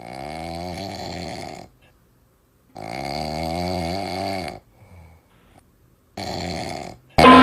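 A man snoring: three long snores, each lasting one to two seconds, with short silent gaps between them. A loud burst of music cuts in abruptly at the very end.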